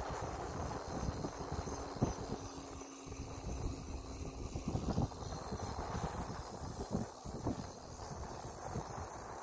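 Wind buffeting the microphone and tyre rumble on pavement from a moving bicycle, with irregular knocks and rattles and a steady high hiss.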